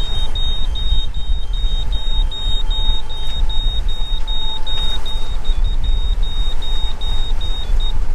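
Electronic alarm beeping rapidly at a high pitch, about three short beeps a second, stopping near the end, over a steady low rumble. This is the navigation electronics' AIS alarm announcing that an emergency rescue transmitter target has appeared on the screen.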